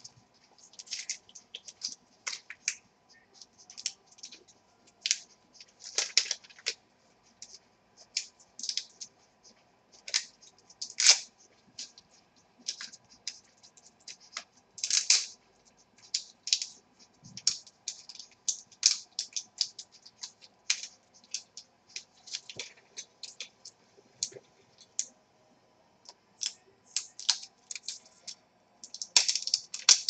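Plastic packaging crinkling and rustling in short, irregular bursts as it is pulled off a laptop charger.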